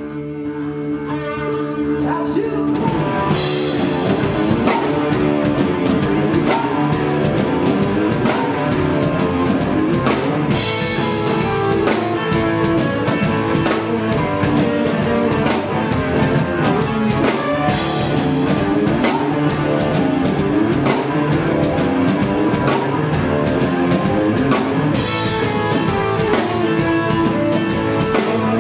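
Live rock band playing, with electric guitar and drum kit. The song opens quietly on held notes, and the full band comes in about two and a half seconds in.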